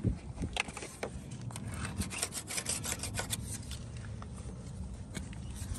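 Hand rubbing and handling noises: light scratching and rubbing with many small clicks and taps scattered throughout.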